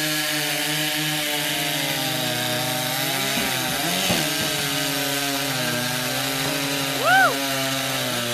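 Two Stihl chainsaws at full throttle cutting through logs, their engine note dropping slightly about a second in as the chains bite into the wood. A short rising-and-falling call cuts over them near the end.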